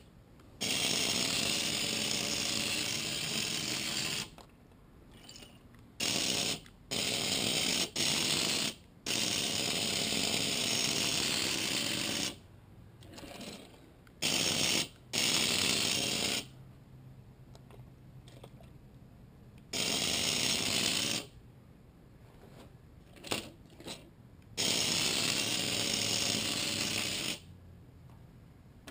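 The small electric motor and drivetrain of a Hot Wheels TCR rally car whir in abrupt on-off bursts of under a second to about four seconds as it drives on a glass tabletop. The throttle is all-or-nothing, with no gradual acceleration: the motor is either running flat out or stopped.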